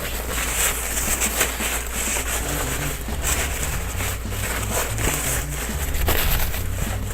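A towel rubbing a wet toy dry, with irregular scuffing strokes.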